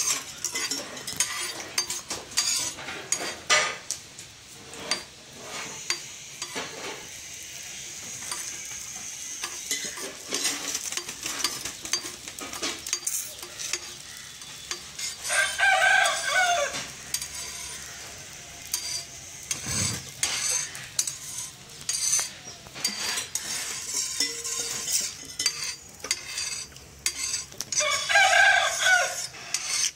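Dosa batter sizzling on a hot iron tawa, with scattered clicks and clatter throughout. A rooster crows twice, loudest of all, once about halfway through and once near the end.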